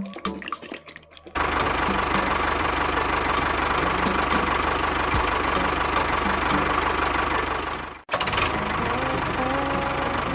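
An engine running steadily. It starts about a second and a half in, cuts off abruptly about eight seconds in and resumes a moment later.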